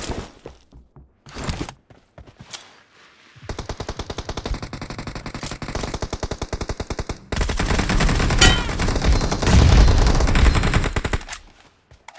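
Video game automatic gunfire: a couple of single shots, then sustained rapid fire from about three and a half seconds in. It gets louder and heavier from about seven seconds in and stops about a second before the end.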